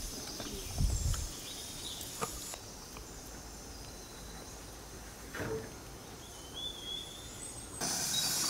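Rural outdoor ambience with a faint insect chirr, a short bird call past the middle, and a few light clicks and knocks from hands working in a metal pot of cherries. A low thump about a second in is the loudest sound, and near the end the background turns to a brighter hiss.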